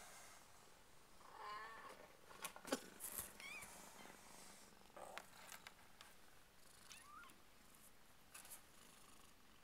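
Two-week-old Burmese kittens mewing faintly: a wavering squeaky cry about a second and a half in, then short high cries a little later and again near the end. Scattered clicks and rustles come as the mother cat settles among them; the sharpest click, a few seconds in, is the loudest sound.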